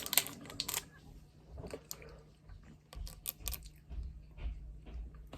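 A handful of sharp clicks and light handling noises, with a few low bumps in the second half.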